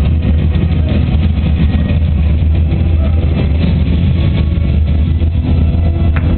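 Steady low rumble and hubbub of a large, crowded indoor arena, with no single sound standing out.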